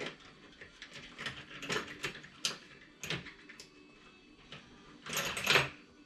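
Tools being picked up and handled: a string of separate light clicks and knocks, then a louder scraping rustle lasting about half a second, some five seconds in.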